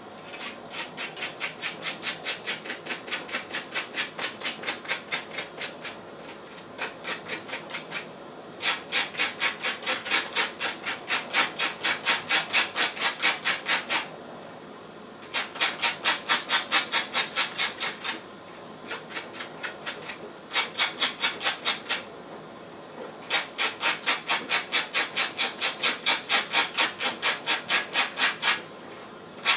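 Rhythmic rasping strokes from hand food preparation at the counter, about four a second, in bouts of a few seconds with short pauses.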